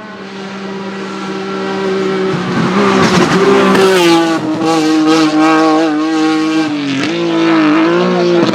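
Hillclimb race car engine approaching at speed, getting louder over the first three seconds, then held at high revs, its pitch dipping and rising again near the end.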